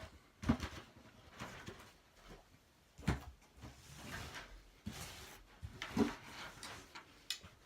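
Cardboard shoe box being handled and opened: a few dull knocks of the box and lid, with rustling of packing paper in between.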